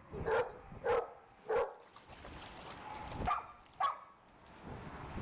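A dog barking: three quick barks in a row, a short pause, then two more.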